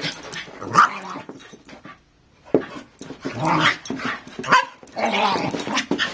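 Two dogs, a Shiba Inu and a Boston terrier–French bulldog mix, growling and barking as they play-fight, with a brief lull about two seconds in.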